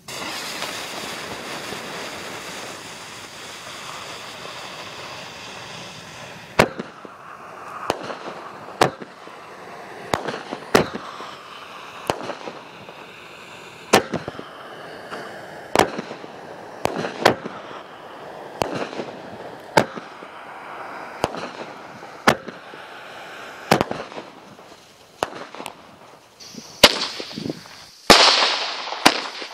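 A 250-gram consumer firework cake, Shotgun Fireworks' "Camaro", firing. It opens with a steady hiss for about six seconds, then about twenty sharp shots go off roughly a second apart with hiss between them. The loudest crackling bursts come near the end.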